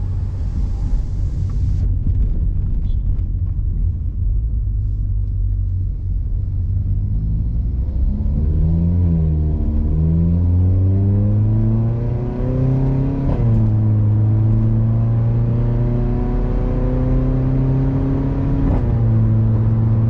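Tuned VW Polo GT TSI's turbocharged 1.2 TSI engine, heard through a non-resonated full-system exhaust with a Remus valvetronic muffler, running under way. The engine note rises and falls with the revs, then climbs under acceleration. It is broken twice, about two-thirds of the way through and near the end, by a short sharp crack as the revs dip.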